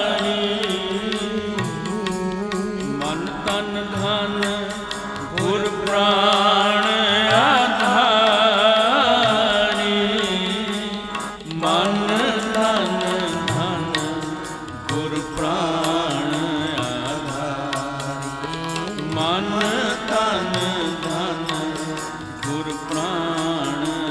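Sikh kirtan music: a melody with sliding, wavering pitch over sustained harmonium notes, with tabla strokes keeping the rhythm.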